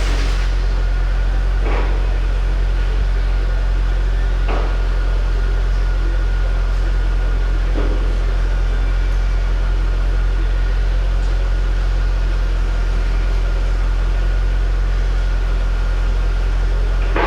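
A steady, loud low machine hum with a faint high whine, broken by a few faint knocks.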